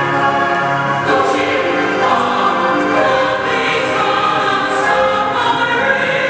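Music: a choir singing held, layered notes.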